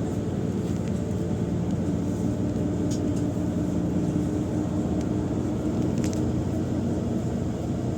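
Steady low engine drone of a vehicle, with a couple of faint clicks.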